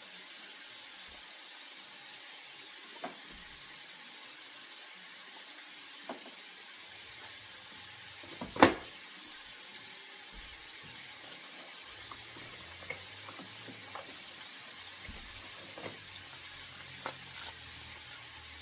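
Onions and peppers sizzling steadily in a little oil in a pot, with a few light clicks and one sharp knock about halfway through.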